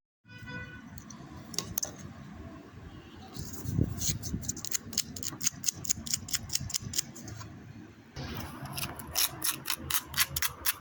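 A short beep, then quick runs of sharp mechanical clicks, several a second, that pause briefly and resume.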